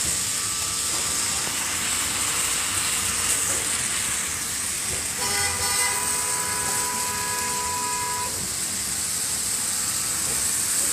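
Street traffic on a wet, slushy road: a steady hiss of passing cars, and about five seconds in a vehicle horn sounds once, held for about three seconds.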